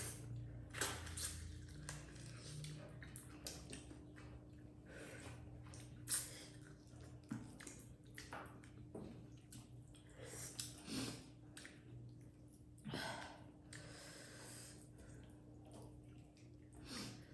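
Close-up eating sounds as dhido and chicken are eaten: chewing and soft wet mouth noises in an irregular run of short sounds, with a faint steady hum underneath.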